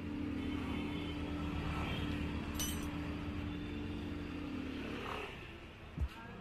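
A motor engine idling steadily, fading away about five seconds in, with a brief metallic clink partway through and a sharp knock near the end.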